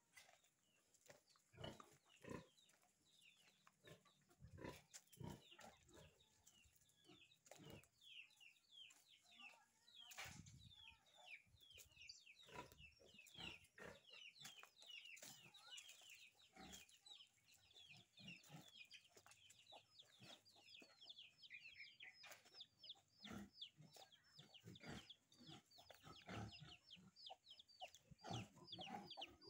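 Faint farmyard birdsong: many short, high, falling chirps, getting thicker about halfway through, over scattered soft knocks.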